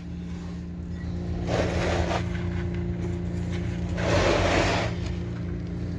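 An engine running steadily at idle with an even low hum, and two brief rushing noises over it, about a second and a half in and again about four seconds in.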